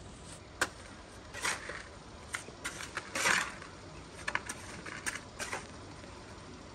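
Mason's trowel scraping and clinking against a metal mortar pan as cement mortar is worked and scooped up: a string of short sharp scrapes and clicks, with one longer scrape about three seconds in.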